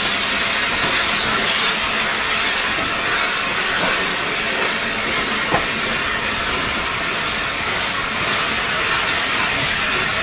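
A train hauled by the LNER A1 steam locomotive 60163 Tornado, heard from an open carriage window while it runs: a steady hissing rush, with one sharp click about five and a half seconds in.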